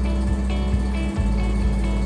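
Background music with a steady low beat and sustained bass notes.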